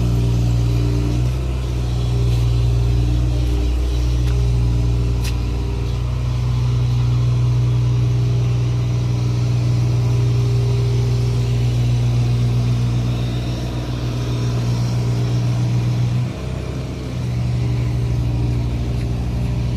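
Backhoe's diesel engine running steadily under work, its note shifting slightly as the load changes and dipping briefly about sixteen seconds in.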